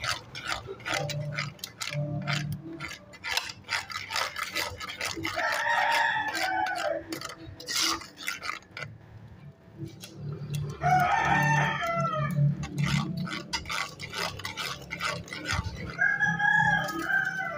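A rooster crows three times, each crow an arching call lasting about a second and a half, about six, eleven and sixteen seconds in. Underneath, a metal spoon clicks and scrapes against a cooking pot as sauce is stirred.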